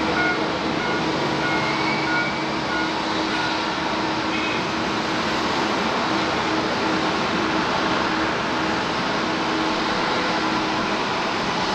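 Steady, even jet-engine noise of airliners taxiing at low power, with a faint steady hum underneath.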